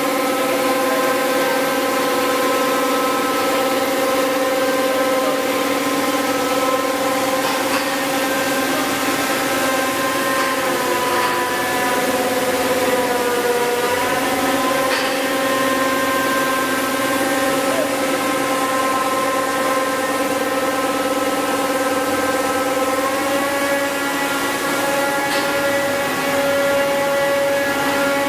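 Single-screw plastic pelletizing line (extruder with its motors and blower) running: a steady machine whine made of many evenly spaced tones over a noise bed. The pitch sags briefly about halfway through and steps up slightly later on.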